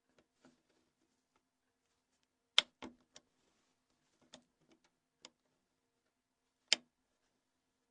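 Sharp plastic clicks as the clips of a Nokia N82's keymat cover are unlocked one by one. The two loudest snaps come about two and a half seconds in and near the end, with several fainter clicks between.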